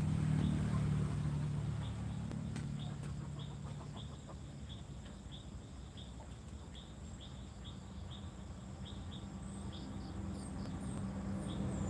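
Short high chirps from a small animal, repeating about twice a second, over a steady low hum that is louder near the start and end.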